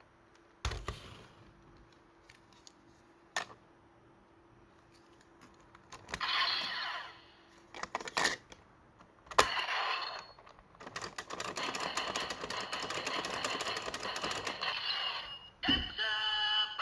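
Toy transformation device being handled and triggered: sharp plastic clicks, then electronic sound effects including a fast rattling stretch of several seconds, with a pitched jingle starting near the end.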